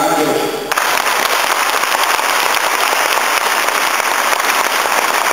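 Audience applauding, a dense steady clatter of many hands that breaks out suddenly just under a second in, as a man's voice stops.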